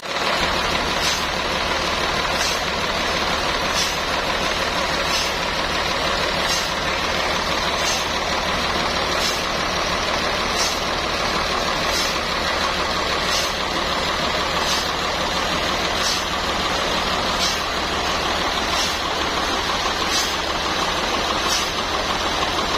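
Sawmill machinery running steadily, with a faint high tick repeating about every second and a half.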